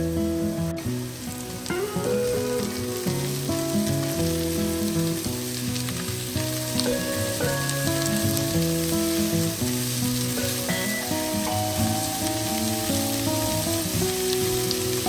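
Food sizzling and frying in oil in a pan, a steady crackling hiss.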